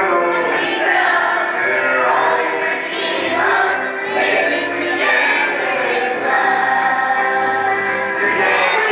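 A group of kindergarten children singing an action song together over musical accompaniment with a steady bass line.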